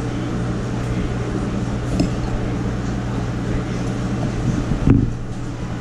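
Steady low mechanical hum, with a few light clinks of a metal spoon against a ceramic bowl while eating, one about two seconds in and a louder knock near the end.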